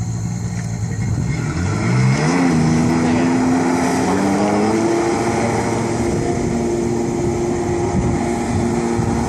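Jet boat engine speeding up: its pitch climbs for a few seconds, then holds steady at a higher speed.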